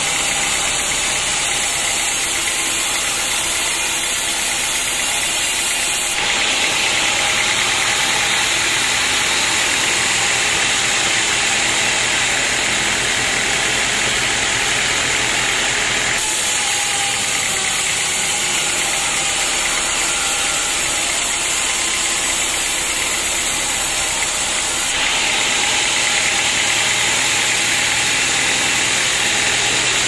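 Band sawmill blade cutting lengthwise through an old teak log: a loud, steady hiss of the blade in the wood over the mill's motor drone. The sound shifts abruptly three times.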